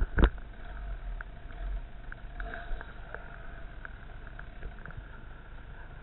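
Enduro motorcycle engine running steadily on a dirt trail, heard from a helmet-mounted camera. A loud sharp knock comes just after the start, then light clicks and rattles.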